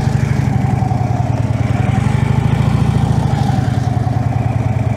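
Touring motorcycle engine running at low revs with a steady, rapid pulsing as the bike weaves slowly through the cones at walking pace. The pitch rises and dips slightly with small throttle changes.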